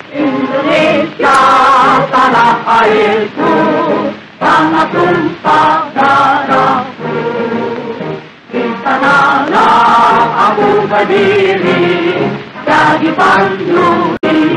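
Music: a choir singing in phrases, with short breaths between them.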